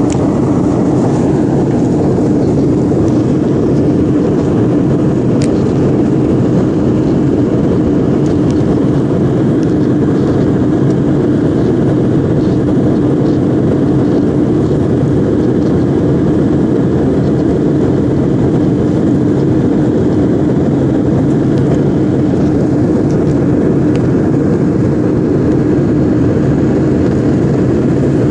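Steady roar of a Boeing 737 jet airliner's engines and rushing air, heard from inside the cabin during the climb-out. The sound is even throughout.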